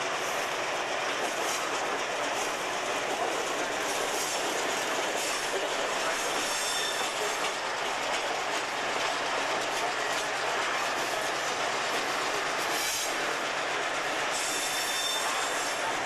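EMD switcher locomotive and its freight train rolling on the rails, heard from inside the cab: a steady running noise with the clack of wheels over rail joints. A high-pitched wheel squeal rises briefly about halfway through and again near the end.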